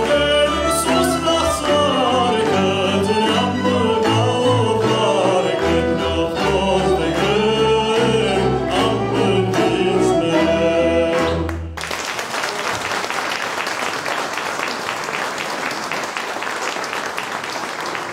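Male choir singing with a folk instrumental ensemble of violins and double bass; the song ends abruptly about twelve seconds in and audience applause follows.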